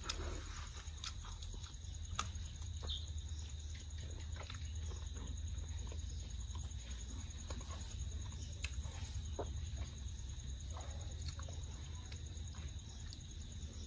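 A man chewing and eating cooked chicken by hand: scattered soft clicks and mouth sounds over a steady low hum and faint thin high steady tones.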